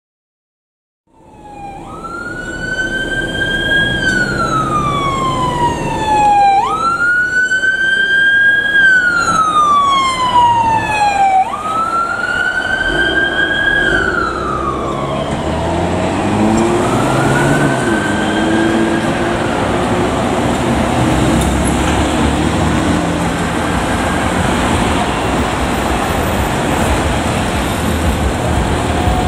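Emergency vehicle siren on a Chevy Suburban wailing, each cycle rising quickly and falling slowly, about every five seconds, starting about a second in. After three loud cycles it fades as the vehicle drives off, leaving steady engine and road noise.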